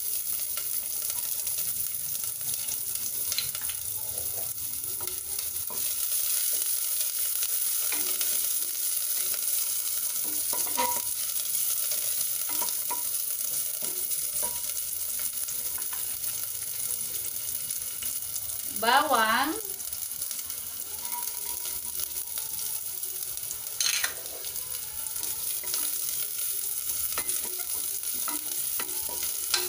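Chopped onion, then garlic, sizzling in hot cooking oil in a stainless-steel pot: a steady high hiss, stirred with a wooden spatula that knocks against the pot a few times.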